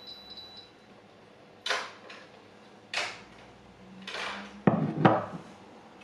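Sharp clinks and knocks of kitchen utensils and containers being handled: three lighter ones about a second apart, then two louder knocks about half a second apart near the end. Short high beeps in the first half second.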